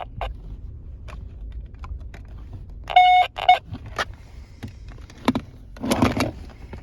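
Handheld 49 MHz walkie-talkies being handled: scattered clicks of knobs and switches, two short electronic beeps about three seconds in, and a brief rush of noise near the end.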